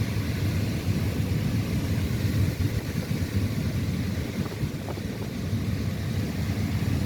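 A car driving, with a steady low road rumble.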